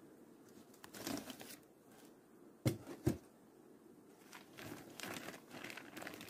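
Plastic film inner cover of a beehive crinkling as it is pried up with a hive tool and peeled back off the wooden frame top bars. Two sharp knocks come close together a little before halfway.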